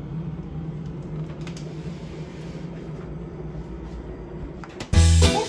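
Refrigerator running with a steady low hum, a few faint clicks over it. Music comes in loudly near the end.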